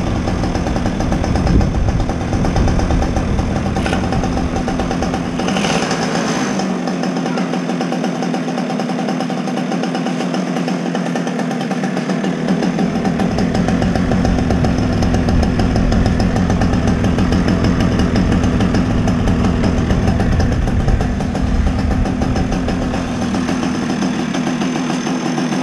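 Yamaha Jog scooter engine idling steadily, running after sitting unused for over two months; its carburetor has not fouled.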